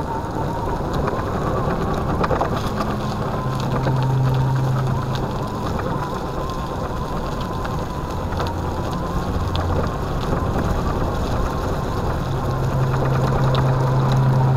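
Solowheel self-balancing electric unicycle riding over stone paving, heard up close from its foot platform: a steady, slightly wavering motor whine over a continuous rumble of tyre and road noise, with scattered small clicks.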